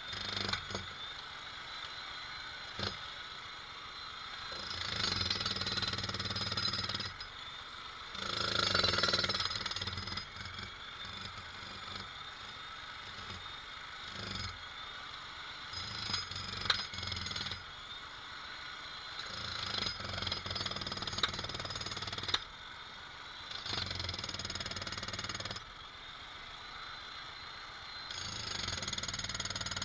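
Jackhammer hammering in repeated bursts of a few seconds each, with short pauses between them.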